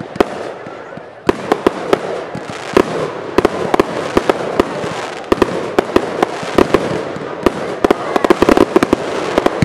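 Aerial fireworks firing in quick succession: sharp bangs of small shells launching and bursting, several a second, over a constant noisy background. The bangs come thickest near the end.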